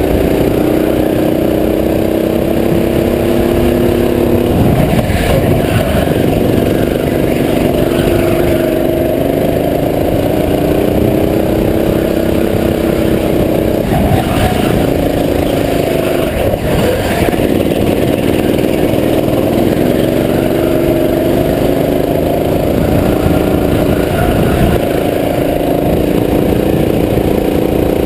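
Go-kart engine heard onboard, rising steadily in pitch under throttle and dropping off sharply about four times as it lifts for corners, then winding up again.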